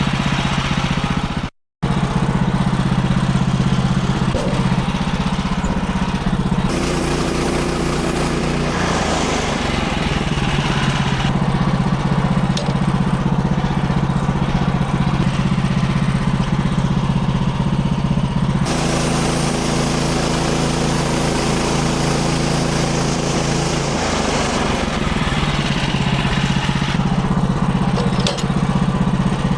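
Portable band sawmill's gasoline engine running steadily while it saws a white oak log into boards, its pitch shifting a few times. The sound cuts out for a split second near the start.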